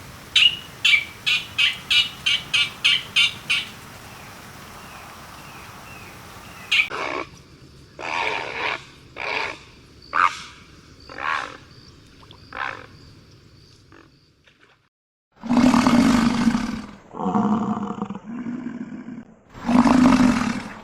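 A series of animal calls: a quick run of about a dozen short high-pitched calls, then half a dozen slower, separate calls, then four loud, deep calls near the end.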